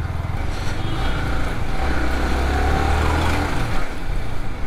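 Yamaha R15 V3 motorcycle's single-cylinder engine running while riding, its low note holding steady and then dropping away about three and a half seconds in, over wind and road noise.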